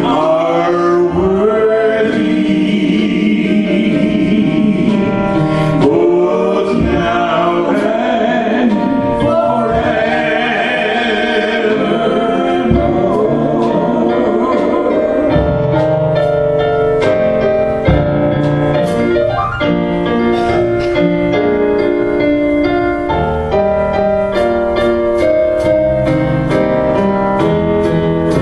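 Worship song sung with piano accompaniment; about halfway through, the voices drop away and the piano plays on alone.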